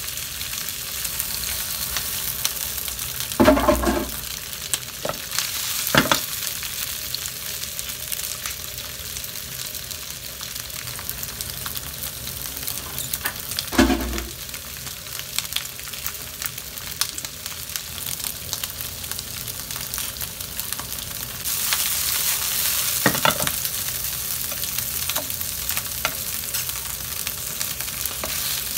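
Whole shell-on shrimp sizzling in hot oil with garlic in a nonstick frying pan, with a few knocks of a slotted spatula against the pan as they are turned. The sizzle grows louder about three quarters of the way through.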